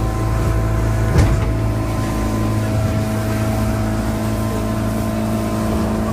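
Boat engine running steadily at a constant speed, with a single knock about a second in.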